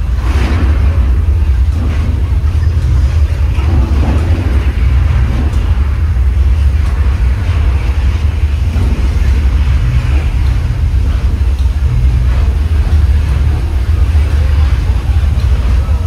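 Studio tour tram riding along, heard from on board as a loud, steady low rumble.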